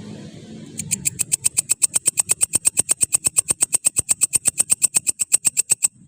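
Grasshopper stridulating: a loud, even train of sharp clicks at about ten a second, starting about a second in and stopping abruptly near the end.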